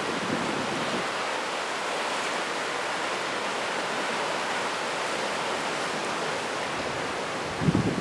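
Steady wash of ocean surf breaking on the beach, with a gust of wind buffeting the microphone near the end.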